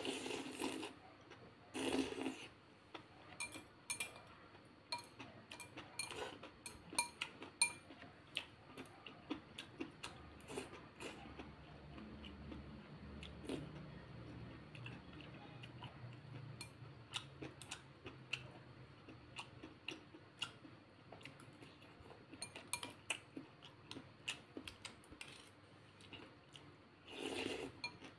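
A person eating rice-noodle soup: two short slurps of brown rice vermicelli at the start and another near the end, with many small clicks of chewing and of metal chopsticks and spoon against the ceramic bowl in between.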